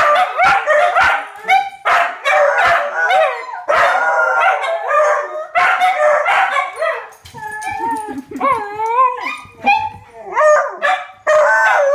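Several pet dogs howling together in a wavering chorus, broken by sharp barks and yips. This is the dogs howling back at fire truck sirens.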